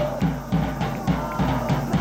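Music with a steady drumbeat, about three beats a second, and a melody held above it.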